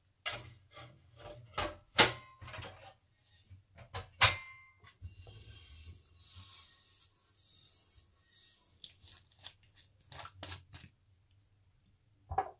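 Removable nonstick waffle plates of an electric contact grill handled and set down: a run of knocks and clatter, with sharper clacks that ring briefly about two and four seconds in, a soft rustling stretch in the middle, and scattered light taps near the end.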